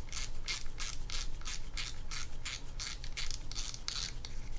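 Steady ratchet clicking, about four clicks a second, from the front drag knob of a Penn Fierce III 4000LL spinning reel being unscrewed by hand to take the spool off.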